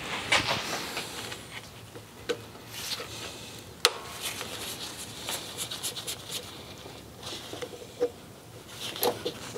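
Light, scattered clicks, taps and rubbing of small metal parts as hands work on a carburetor's linkage, with one sharp click about four seconds in.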